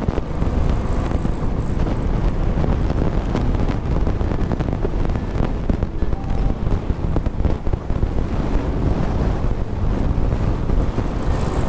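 Wind buffeting the microphone of a camera on a moving motorcycle, a steady rushing roar with road and engine noise underneath.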